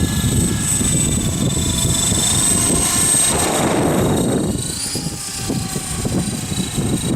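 HK-T500 electric RC helicopter flying: a steady high motor and rotor whine that rises in pitch about four and a half seconds in, under heavy wind buffeting on the microphone from strong wind.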